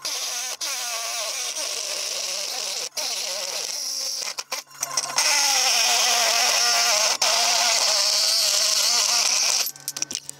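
Ryobi reciprocating saw cutting through an aluminum golf-cart frame rail. The blade runs in stretches with brief breaks and a longer pause about halfway, then cuts louder and steadily until it stops near the end.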